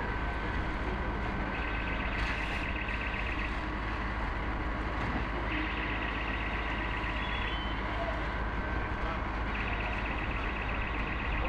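An electronic alarm sounding in high, warbling bursts of about two seconds, one starting roughly every four seconds, over a steady low engine rumble.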